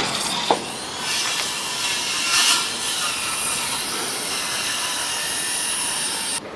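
Power saw cutting wood in one steady run of about five seconds, cutting off suddenly near the end. Two sharp knocks come just before the cut begins.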